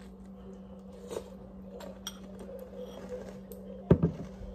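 Light clinks of a metal spoon in a ceramic cereal bowl over a steady low hum, then a heavy thump about four seconds in, followed by a smaller knock.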